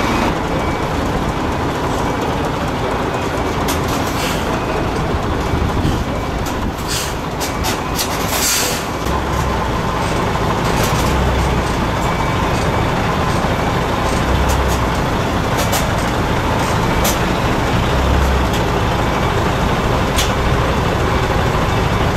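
DAF XF semi-truck's diesel engine running as the truck creeps forward, the engine surging now and then. Several short air-brake hisses sound over it, the longest about eight seconds in.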